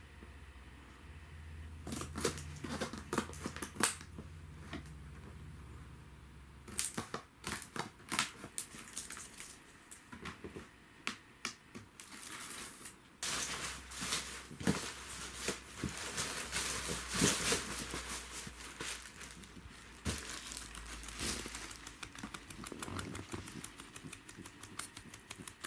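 Irregular crinkling, rustling and clicking of things being handled, with a low steady hum underneath at times.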